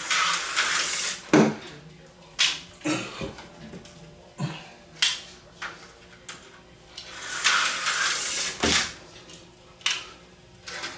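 Small plastic clicks and knocks from a slot car being handled and set down on a plastic slot car track, about ten separate clicks, with two short stretches of hiss near the start and about two-thirds of the way through.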